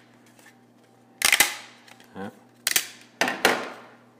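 A stack of 3D-printed PLA face-shield headbands cracking and snapping as one band is pried off the one beneath it by hand: about five sharp cracks in three quick groups, the thin layers that join the stacked prints breaking free.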